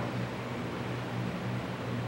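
Steady low hum and even hiss of a fan running, with one light click at the very start.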